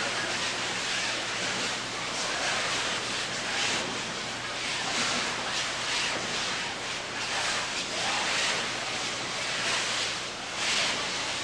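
Ambience of a group practising with wooden bokken swords in a dojo: a steady rushing hiss with irregular swells, over a faint low hum.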